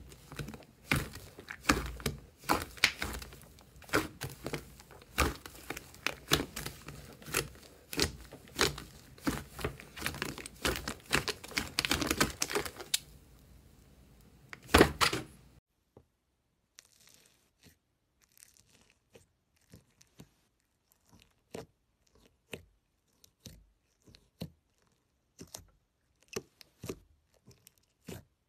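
Thick slime being stretched, pressed and folded by hand: a dense run of small crackling pops and tearing sounds. About fifteen seconds in it cuts off suddenly to a much quieter stretch of sparse crunchy clicks as foam-bead slime is pressed with a finger in a plastic tub.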